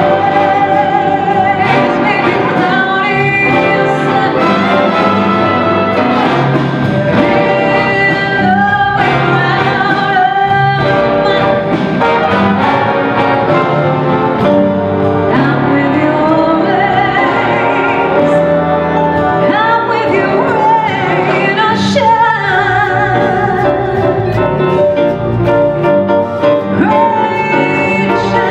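A female vocalist singing a jazz standard live with a wind ensemble (concert band) accompanying her.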